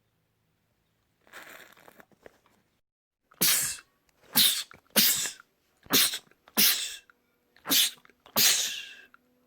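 A man sneezing seven times in quick succession, each sneeze short and sharp.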